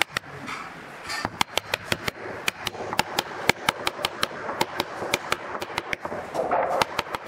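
Claw hammer tapping on wood, driving a round wooden plug into a hole: a quick series of light, sharp strikes, about four a second, with a short pause about a second in.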